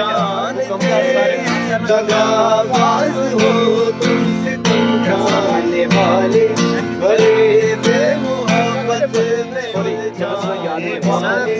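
Men singing a song together to a steadily strummed acoustic guitar.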